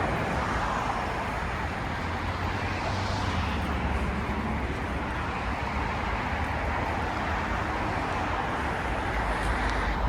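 Street traffic: a steady hiss of passing vehicles over a low engine rumble, with one vehicle swelling past about three seconds in.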